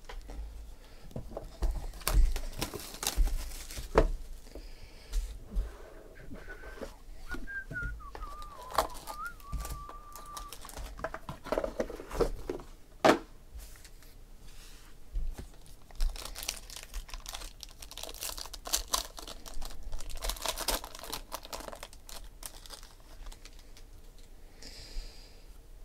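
Hands opening a sealed box of trading cards: wrapping and cardboard crinkling and tearing, with sharp taps and knocks as the box and cards are handled on the table.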